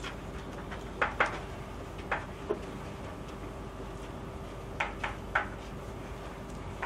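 Marker writing on a whiteboard: short strokes in small groups, about seven in all, over a faint steady hum.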